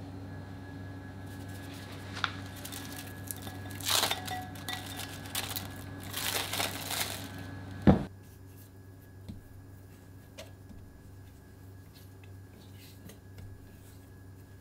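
Plastic cling film crinkling as it is peeled off a glass bowl of dough. A single sharp knock comes about eight seconds in, then faint soft sounds of dough being kneaded on a stainless-steel counter, over a steady low hum.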